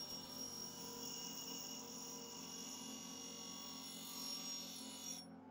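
Bench grinder running with a steady whine and ringing tones as a piece of steel is held against the spinning wheel. The higher tones cut out just before the end.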